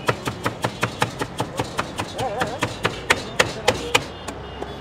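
Rapid rhythmic knocking of a glass bottle pounding panipuri filling in a steel pot, about five strokes a second, slowing near the end and stopping about four seconds in.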